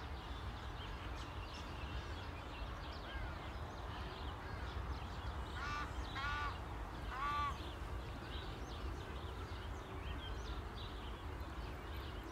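Outdoor bird ambience: a bird gives three loud calls about six to seven and a half seconds in, over scattered small high chirps of other birds and a low steady rumble.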